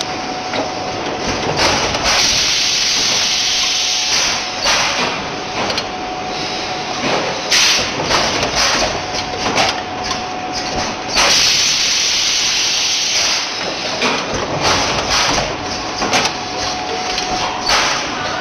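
Compressed air hissing out of a PET bottle stretch blow moulding machine in repeated blasts, some lasting a second or two and others short and sharp, over a steady high hum from the running machine.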